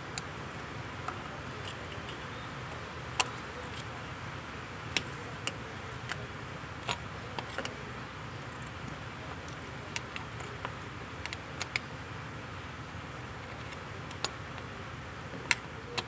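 Irregular sharp metallic clicks and taps of a steel screwdriver prying at an old metal freeze plug in an engine block's water-jacket hole, over a steady low hum. The plug is stuck and hard to work loose.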